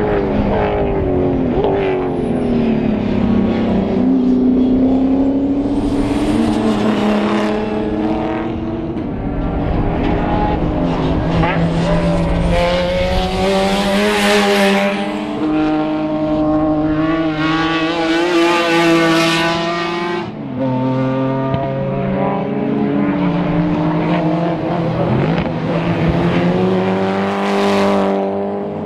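Racing car engines at full throttle, rising and falling in pitch through gear changes. Several cars sweep past close by one after another, the loudest passes coming near the middle of the stretch.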